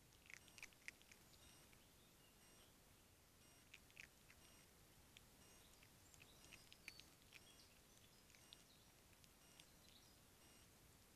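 Near silence, broken by a few faint, brief high chirps and clicks in three small clusters: one just after the start, one about four seconds in, and one around six to seven seconds in.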